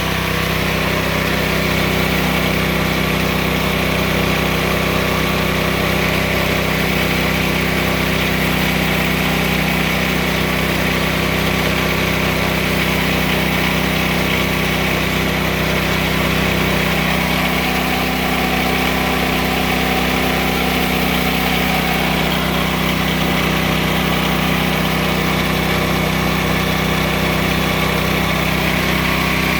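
14 hp 420cc single-cylinder gas engine of a homemade bandsaw sawmill running steadily, driving the band blade as it is fed slowly through a log.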